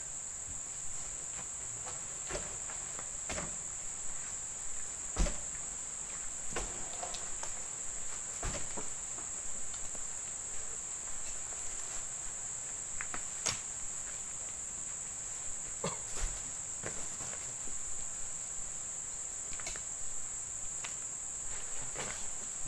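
Heavy oil palm fruit bunches landing with a thud on a truck's load one at a time, every second or few seconds, as they are tossed up and stacked. A steady high-pitched insect drone runs underneath.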